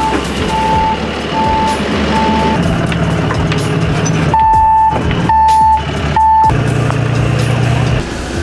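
Truck backup alarm beeping at one steady pitch, about one beep every three-quarters of a second, over a running truck engine. After a few beeps the sound cuts off and starts again louder.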